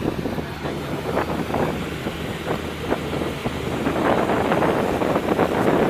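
Lamborghini Gallardo Spyder's V10 engine idling steadily, with wind buffeting the microphone and getting louder in the second half.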